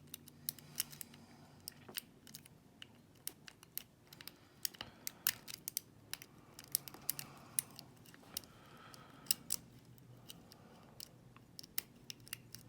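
A lock pick working inside the keyway of a slider-type safety lockout padlock: small, sharp, irregular clicks, a few a second, as the sliders are probed and pushed.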